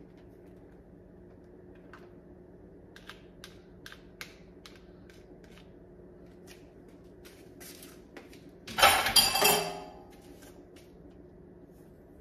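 Metal kitchen tongs clicking and tapping against a cooking pot as spaghetti is tossed in it, with one loud scraping clatter lasting about a second near nine seconds in. A steady low hum runs underneath.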